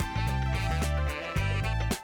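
Background music with a bass line, guitar and a steady drum beat.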